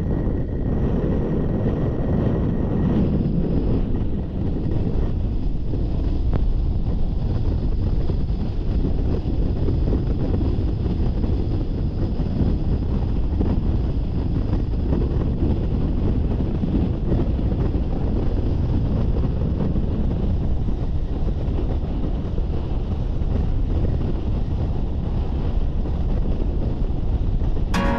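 Steady road noise of a Jeep driving, engine and tyres, with wind buffeting the microphone.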